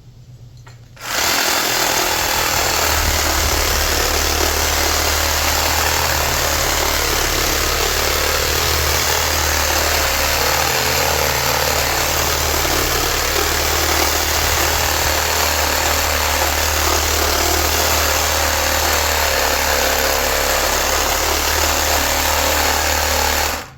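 A power tool running loud and steady as it cuts into a large electric motor to free the copper windings. It starts abruptly about a second in and cuts off just before the end.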